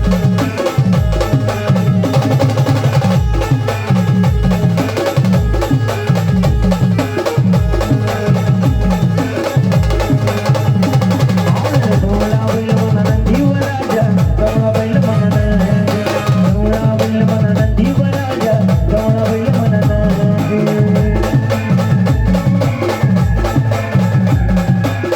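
Indian wedding-style brass band playing a Marathi folk song: a steady, heavy drum beat under a wavering melody line that runs without a break.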